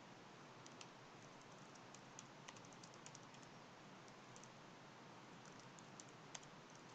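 Faint typing on a computer keyboard: soft, irregular key clicks in short runs.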